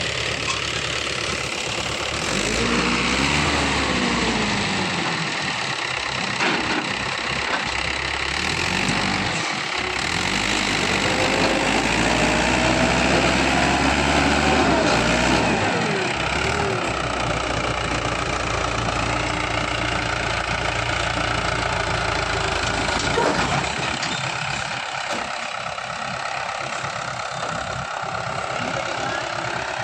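Farm tractor's diesel engine running and revving up and down, with two spells of rising and falling revs, then settling to a steadier, slightly quieter run near the end.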